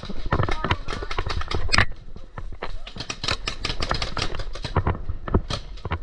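Paintball markers firing in quick, irregular strings of sharp pops, with some paintballs smacking against bunkers.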